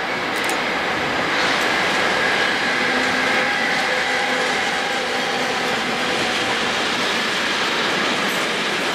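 Electric locomotive and its container freight wagons passing at speed: a steady rolling of steel wheels on the rails, with a faint high steady ringing from the wheels in the middle of the pass.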